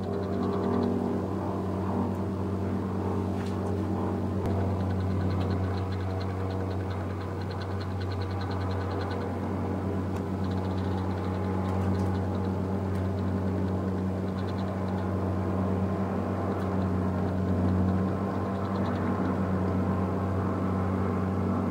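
A steady low mechanical drone, holding an even pitch and level throughout.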